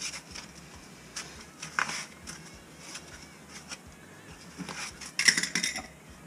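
Light clicks and scrapes of hand work at a 3-inch ABS drain pipe in a concrete floor, with a louder clatter of a utility knife and a plastic toilet flange on concrete about five seconds in.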